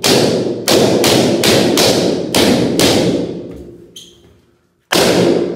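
Latex balloons bursting one after another: seven sharp bangs in quick succession, then a pause of about two seconds and one more bang, each followed by a ringing room echo.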